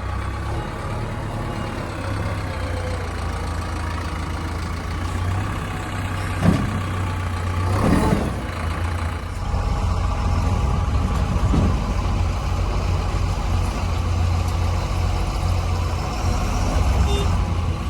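JCB 3DX backhoe loader's diesel engine running steadily, working harder from about nine and a half seconds in, with a sharp knock about six and a half seconds in and a louder clunk about eight seconds in.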